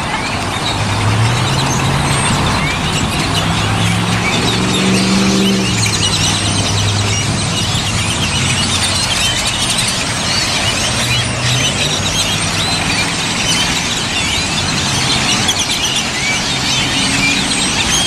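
Huge flock of birds on power lines and in flight, a dense din of many overlapping chirps and squeaks. A road vehicle's engine hums underneath from about a second in to about seven seconds, and again around the middle.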